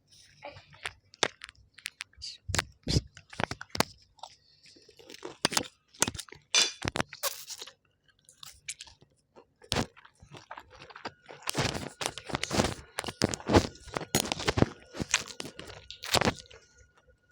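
Close-up chewing and crunching of crispy food, with irregular sharp crackles that come thickest in a long run of bites past the middle.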